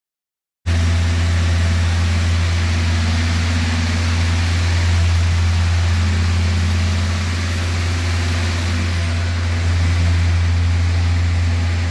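Hyundai G4FD 1.6 GDI four-cylinder engine idling steadily, freshly overhauled with new pistons and rings in a sleeved block; the sound starts abruptly less than a second in.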